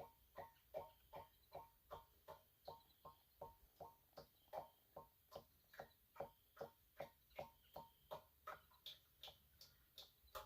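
Faint, regular ticking, about three ticks a second, each tick with a short ringing tone.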